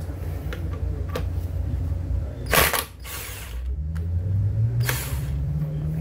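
Impact gun on the rear axle nut of an electric scooter wheel, loosening it with clicks and ratcheting mechanical rattle and two short bursts, the louder one about halfway through.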